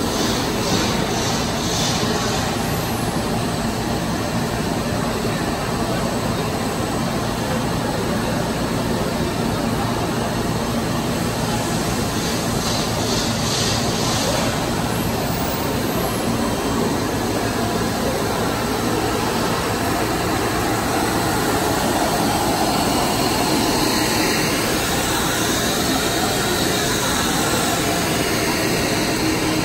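Zipper profile extrusion line running: a steady, even machine noise of motors and drives.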